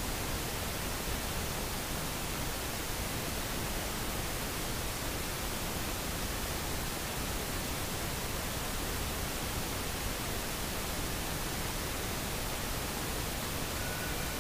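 Steady, even hiss of recording background noise, with nothing else heard over it.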